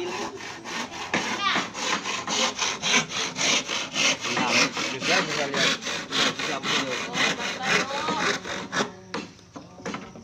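Handsaw cutting through a wooden board in quick, even back-and-forth strokes, about four or five a second. The strokes break off near the end, then a few more follow.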